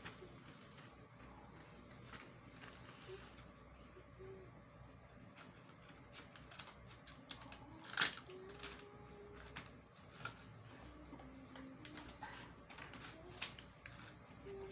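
Scissors snipping through the card backing of a strip of pop-it fidget toys, with the rustle and crackle of plastic packaging being handled: scattered small clicks and rustles, the loudest snip about eight seconds in.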